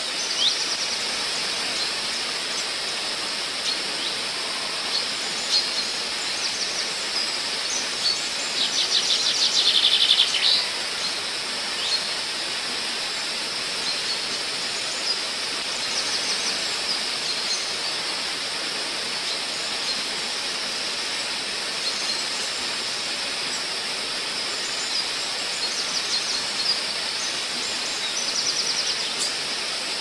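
Waterfall rushing with a steady hiss, while songbirds chirp over it. The loudest moment is a fast bird trill about nine seconds in, and shorter trills come again later and near the end.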